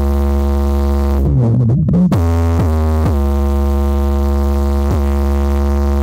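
Electronic music played loud through a car sound system, a Power Systems A2800 amplifier driving a Banda Electra 3K4 speaker: a sustained synthesizer chord over a deep, steady bass note, with a wavering pitch bend about a second and a half in.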